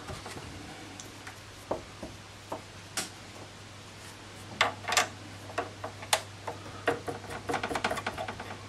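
Scattered light clicks and taps of hands handling the metal fittings of a Wilesco D32 model steam engine, turning to a quicker run of small clicks near the end as the control-panel knobs are worked.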